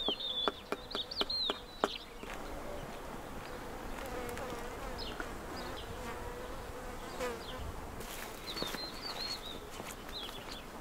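A bee buzzing in a steady, wavering hum through most of the stretch. A quick run of sharp clicks in the first two seconds, and a few high bird chirps at the start and again near the end.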